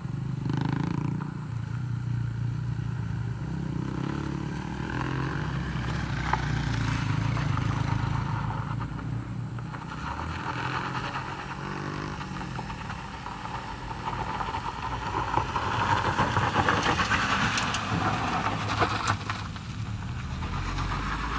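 Motorcycle and car engines running as traffic crosses a rough, loose-gravel road. A front-wheel-drive car climbs across the gravel in the second half, bringing a louder stretch of engine and gravel noise with scattered clicks.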